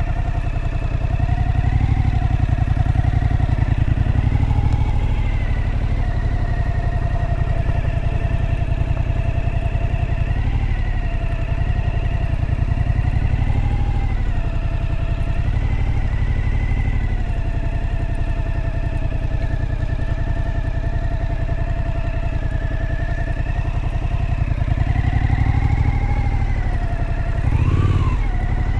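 Suzuki V-Strom motorcycle engine running under way at a steady cruise, its pitch wavering slightly with small throttle changes, then rising and falling sharply near the end.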